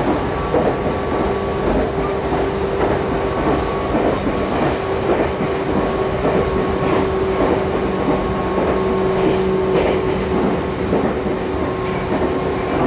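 Meitetsu 6000 series electric train running at a steady speed, heard inside the passenger car: the traction motors give a steady whine over the rumble of the wheels on the rails, with occasional clicks from the rail joints.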